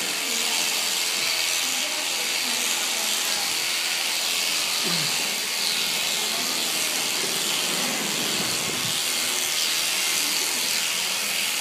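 Electric shearing handpiece running steadily, its cutter buzzing through alpaca fleece.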